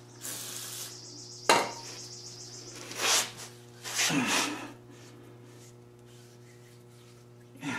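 Short hisses of an aerosol can of PB Blaster penetrating solvent sprayed onto a greasy go-kart axle, with rubbing and a sharp knock about a second and a half in. A steady low hum runs underneath.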